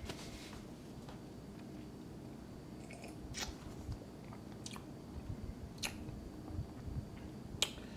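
Faint mouth sounds of a sip of bourbon being tasted: a handful of soft lip smacks and clicks, spaced a second or more apart, in a quiet room.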